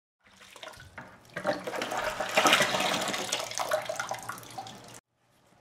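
Soapy water sloshing and splashing in a plastic bucket as a motorcycle's plastic coolant reservoir is scrubbed and swished through it by hand, with drips and small knocks of plastic. It is loudest in the middle and cuts off suddenly near the end.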